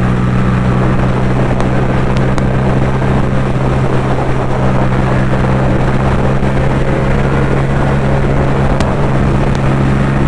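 Yamaha MT-07 motorcycle's 689 cc parallel-twin engine running at a steady, unchanging pitch while the bike cruises at constant speed, with wind noise over the microphone.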